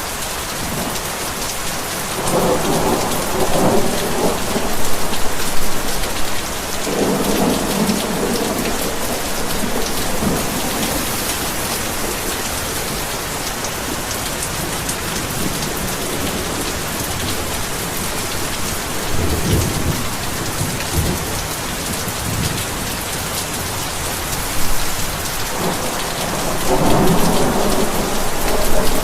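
Heavy rain falling steadily, with thunder rumbling four times over it.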